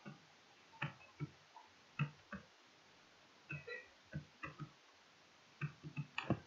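Faint, scattered clicks of a computer mouse while a document is scrolled: about fifteen short clicks at irregular spacing, some in small clusters.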